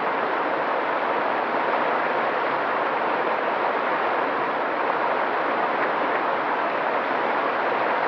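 Mountain stream flowing over rocks: a steady, even rush of water.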